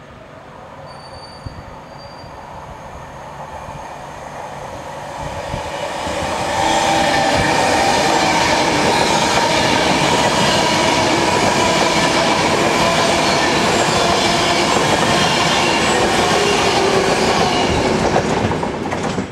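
A train passing through at speed: its rail noise builds over about six seconds to a steady loud rush, then drops away near the end.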